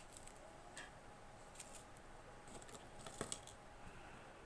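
Crisp fried namak para pieces clicking faintly against each other and a plastic bowl as a handful is set down into it: a few scattered light clicks, the loudest cluster a little after three seconds in.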